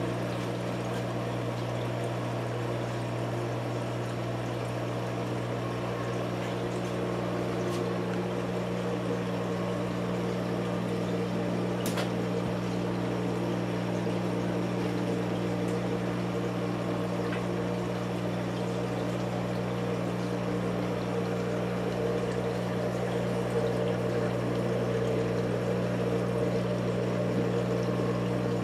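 Steady low hum of a saltwater reef aquarium's pump, with water pouring and trickling through the tank and its sump. One faint click about twelve seconds in.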